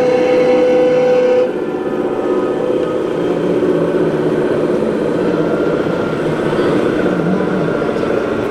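Model vehicle sound: a steady horn tone that cuts off about one and a half seconds in, followed by a steady, rattling engine running sound, as from RC model sound units.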